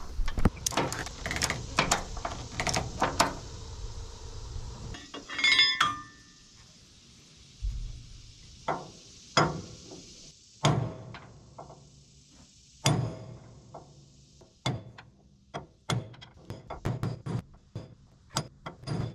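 A ratchet strap being cranked tight with quick clicks, then a hammer striking a driver bolted to the end of a boom lift's hydraulic cylinder pivot pin, single metal-on-metal blows about a second apart as the pin is knocked out.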